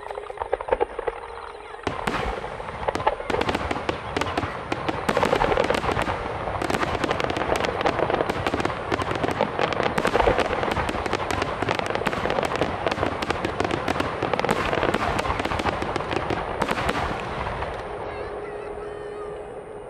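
Fireworks finale barrage: a dense run of bangs and crackling shells starts about two seconds in, builds into a thick, continuous crackle, and dies away near the end.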